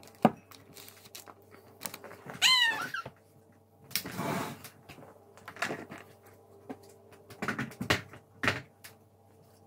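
A toddler's short high vocal squeal that falls in pitch, about two and a half seconds in, among scattered knocks and taps on a high-chair tray and a brief rustle about four seconds in.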